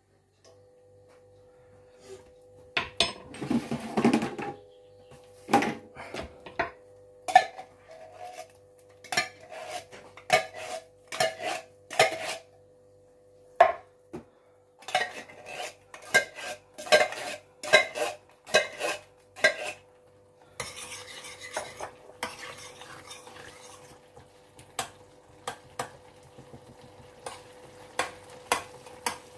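A metal spoon stirring thick sauce in a large stainless-steel roasting pan. It clinks and scrapes against the pan's sides and base in a run of sharp knocks, then turns to a softer, continuous wet stirring for the last third, over a faint steady hum.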